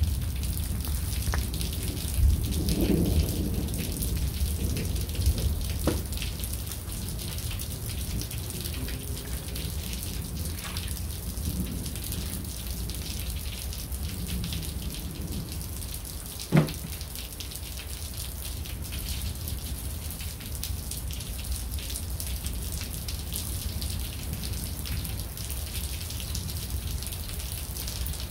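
Steady rain falling over a low rumble, during a thunderstorm. A few single drops tap close by, and one sharp tap about halfway through is the loudest sound.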